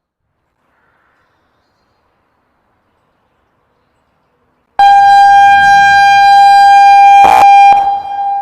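Near silence, then about five seconds in an ACA outdoor warning siren sounds a loud, steady single-pitch alert tone, the attention signal of a monthly system test. The tone has a short crackle near its end, stops sharply after about three seconds, and echoes away.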